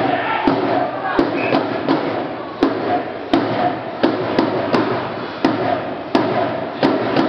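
Spectators at an ice rink banging out a steady cheering beat, one sharp knock about every 0.7 seconds, with crowd noise echoing in the hall.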